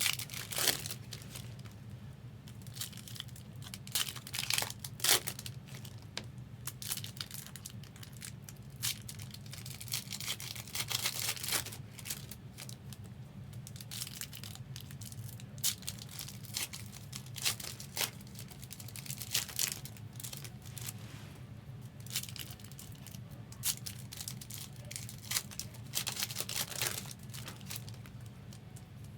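Trading card pack wrappers being torn open and crinkled, one pack after another, in short irregular rips and rustles over a steady low hum.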